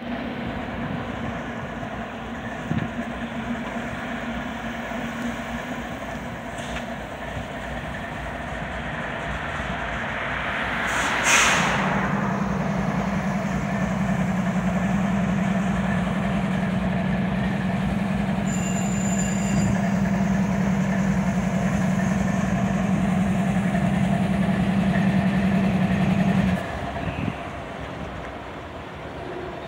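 Idling CSX diesel-electric locomotive running steadily. About eleven seconds in, a short loud hiss of air lets off, then a louder steady hum sets in for about fifteen seconds and cuts off suddenly.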